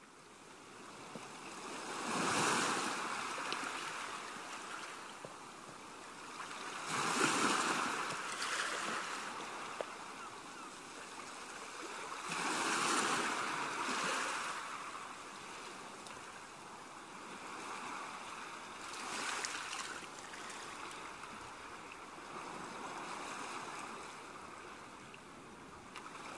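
Ocean waves washing, surging up and falling back roughly every five seconds.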